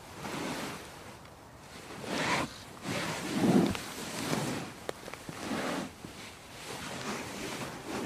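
A person shifting about on a couch: the cushions and fabric upholstery rustle and shuffle in a series of separate movements, the loudest about three and a half seconds in.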